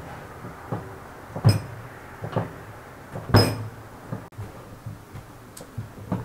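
Hands kneading dough in a plastic bowl: irregular dull thumps and knocks as the dough is pressed and the bowl is pushed about, the two loudest about two seconds apart.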